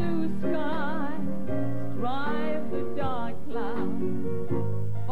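Background music: a song with a singing voice holding notes with vibrato over steady low accompaniment.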